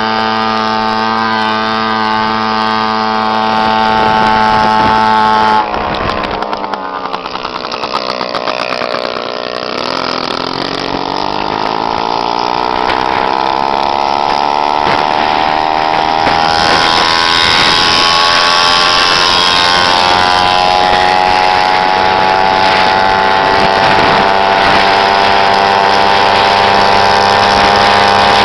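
Small two-stroke moped engines buzzing at high revs. About five and a half seconds in, the note breaks off, dips, then climbs steadily as a moped accelerates and holds a higher, steady pitch.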